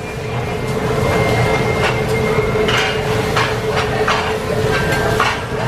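Metal utensils clanking and scraping at a teppanyaki griddle table: a run of sharp metallic strikes from about two seconds in, over a steady hum and background chatter.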